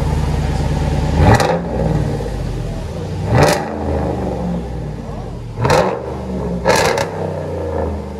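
5.7-litre Hemi V8 of a Ram 1500 running through a straight-piped dual exhaust, with muffler and resonators deleted and the factory catalytic converters kept. It idles and is given five quick throttle blips: one about a second in, one at three and a half seconds, and three more later, the last two close together.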